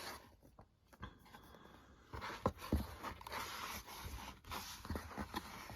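Paperback manga volumes and their cardboard box being handled: soft rustling and sliding of paper and card with a few light knocks, growing fuller about two seconds in.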